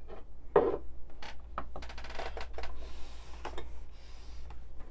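Small clicks, taps and light knocks of ceramic cups and a coffee scale being handled on a wooden desk, with a quick run of small ticks about two seconds in and a soft rustling hiss a little after three seconds. A low steady hum underlies it.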